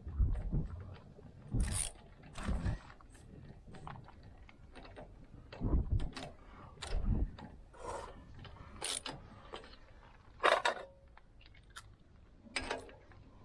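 Hand tools and metal brake parts clinking, clicking and knocking at irregular intervals during rear brake pad work, with one sharper knock about ten and a half seconds in.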